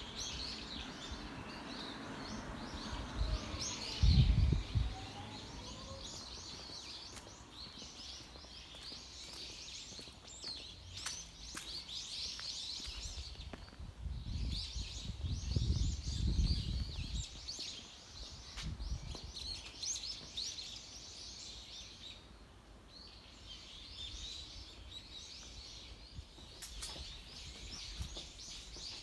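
Small birds chirping and twittering almost without a break. Low rumbles come about four seconds in and again for a few seconds around the middle.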